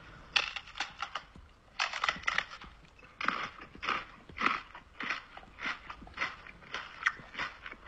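A man making pretend chewing and munching noises with his mouth against a dog's ear: short wet chomps, irregular at first and then in a steady rhythm of nearly two a second from about three seconds in.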